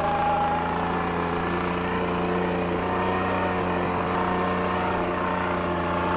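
Leaf blower running at a steady speed, a constant engine note with no change in pitch.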